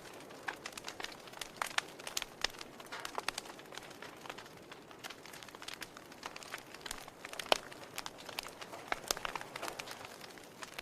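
Wood fire crackling in a fireplace: irregular sharp pops and snaps over a soft steady hiss of burning.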